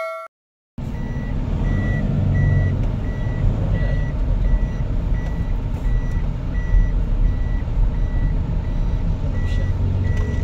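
Electronic warning beeper sounding a short high beep about twice a second inside a moving van's cabin, over the steady rumble of the engine and road.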